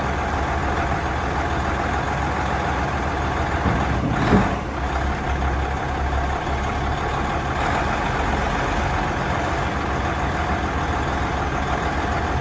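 1993 Ford LS8000F diesel dump truck engine idling steadily, with one brief clunk about four seconds in.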